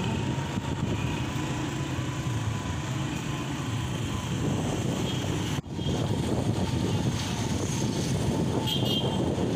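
Motorbike ride through a city street: the bike's engine and road noise mixed with wind rushing over the microphone, steady throughout. The sound cuts out abruptly for a moment a little past halfway, then resumes.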